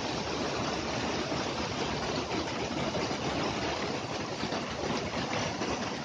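Mountain stream rushing over rocks, a steady, even rush of water.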